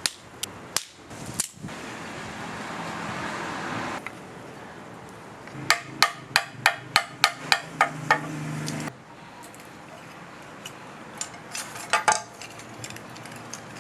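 Sharp wooden knocks and cracks of dry firewood and sticks being handled and broken. A quick run of about ten knocks, roughly four a second, comes in the middle, and a cluster of snaps follows near the end.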